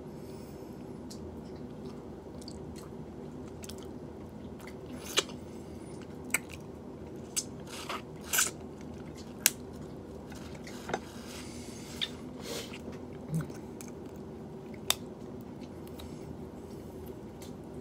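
Boiled shrimp being peeled by hand and eaten: scattered sharp crackles and clicks of shell and mouth, about a dozen, over a steady low hum.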